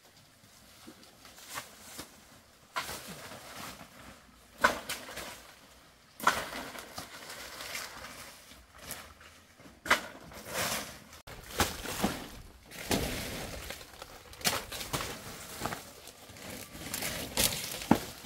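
Dry sticks and brush being broken and gathered: irregular sharp snaps and knocks, with rustling between them.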